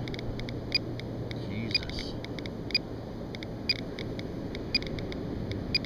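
GQ GMC-300E Geiger–Müller counter clicking irregularly, a short sharp pip for each detected count, a few each second. The count rate is elevated, around 500 counts per minute, the sign of a radiation hot spot in the sand.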